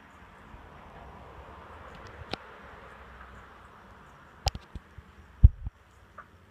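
Handling noise on a handheld camera: a few sharp clicks and one loud, low bump about five and a half seconds in, over a steady background hiss that drops away after the bump.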